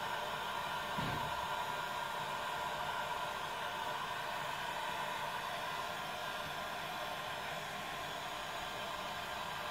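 Ozito electric heat gun running steadily, a constant rush of hot air blown onto a polyethylene strip held in pliers to soften it for plastic welding.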